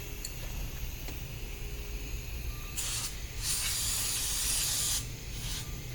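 Pressurised spray hissing during a brake job: a short burst about three seconds in, then a longer one of about a second and a half.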